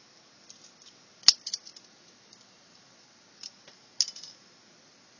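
Small pocket-multitool scissors clicking and snipping through the thin wires of a musical greeting card's circuit board: a few sharp, light clicks, the sharpest about a second in and another cluster near the end.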